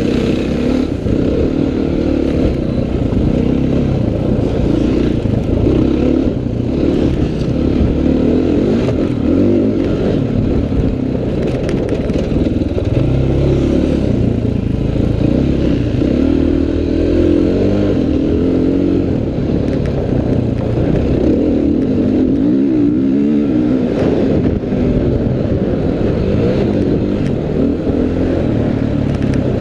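Dirt bike engine, heard from on the bike while it is ridden around a motocross track. The engine note keeps rising and falling as the rider opens and closes the throttle and shifts through the corners.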